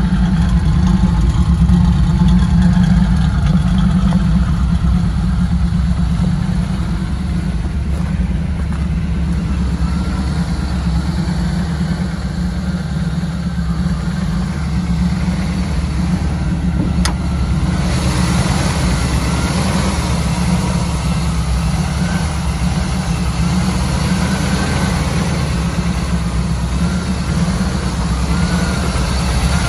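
The 1970 Chevrolet C10's 350 cubic-inch V8 idling steadily. A sharp click sounds a little past halfway, after which a higher hiss is added to the engine sound.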